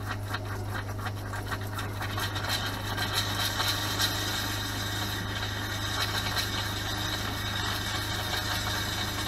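RV fresh water pump running with a steady hum while water sputters from the galley faucet and splashes onto the plastic sink cover. The lines are still spitting air as the hot water tank fills.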